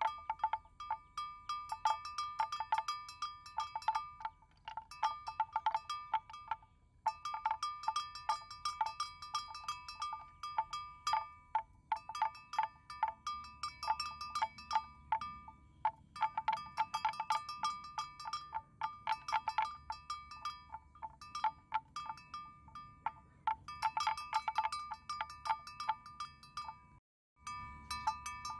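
Metal bell hung on a grazing water buffalo's neck, clanking over and over in irregular runs of quick strikes with short pauses, always ringing at the same two pitches.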